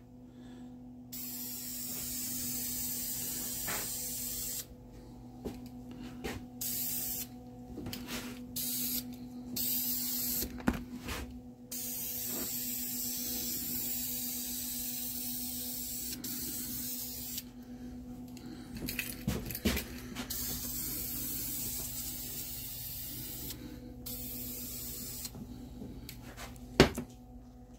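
Krylon aerosol spray-paint can hissing in a series of sprays, some short and some several seconds long, with brief pauses between. A steady low hum runs underneath, and there is a sharp knock near the end.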